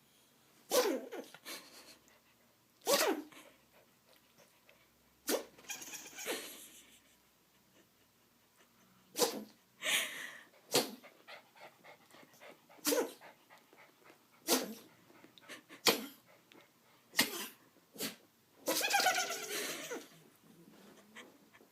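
A puppy sneezing over and over: about a dozen short, sharp sneezes at irregular gaps of roughly one to three seconds, with a longer, noisier burst near the end.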